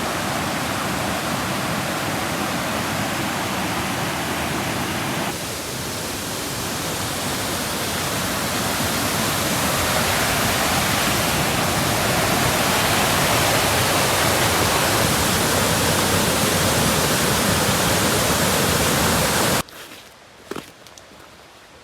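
Waterfall water rushing loudly and steadily, shifting slightly about five seconds in. It cuts off abruptly near the end, leaving a quiet stretch with a few faint taps.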